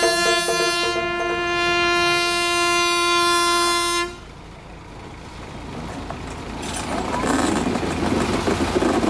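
Amusement ride train's horn sounding one long steady blast that cuts off about four seconds in, followed by the train's running rumble growing louder as it approaches.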